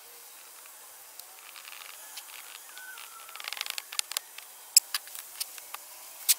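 Gloved hands drawing a pattern out of a sand casting mold with a small tool: light scraping and a quick run of small clicks about halfway through, then a few sharp taps of tool on pattern or flask, the loudest near the end.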